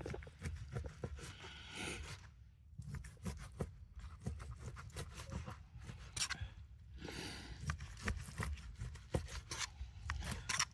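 Edge of a spoon scraping at food on a cooking surface, a series of short scrapes and clicks with a few longer scraping strokes, cutting away a fatty bit.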